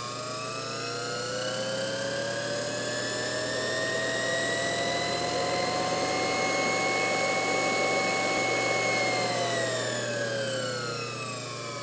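1930s Leland Electric variable-speed, reversible motor speeding up as its throttle lever is pushed over. Its whine rises in pitch for about six seconds, holds at top speed for a few seconds, then falls as the lever is brought back. A steady low hum runs underneath.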